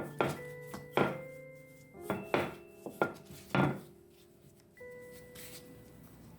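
A handful of sharp knocks and taps from kitchen work, over background music with held notes. The knocks stop about four seconds in, leaving only the music.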